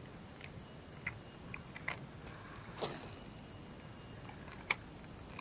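A few faint, irregular clicks and ticks from handling a spinning rod and reel, about seven spread across the few seconds, with one slightly louder click near the end.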